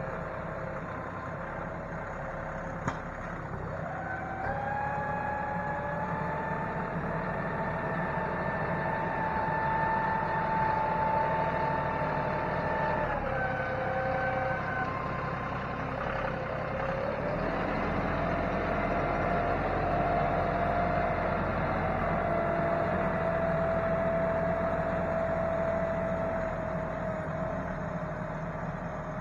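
John Deere utility tractor's diesel engine running steadily under load, with a whine that rises about four seconds in, holds, drops off around thirteen seconds, and comes back lower a few seconds later as the tractor changes direction. A single sharp click sounds near the start.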